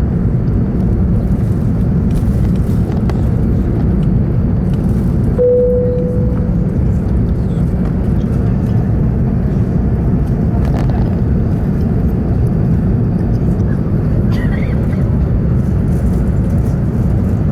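Steady low rumble of engine and airflow noise inside the cabin of an Airbus A380-800 climbing out after takeoff. About five seconds in, a single chime rings and fades.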